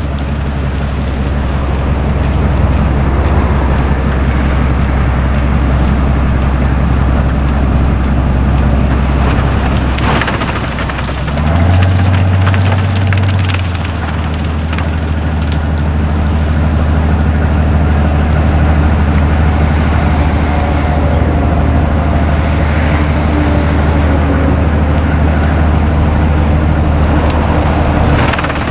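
Railway snow blower's diesel engine running under load with a steady low drone, over the noisy rush of hard-packed snow being cut and thrown, with a few sharp cracks around ten seconds in. About twelve seconds in the engine note rises for two seconds, then drops back to its earlier pitch.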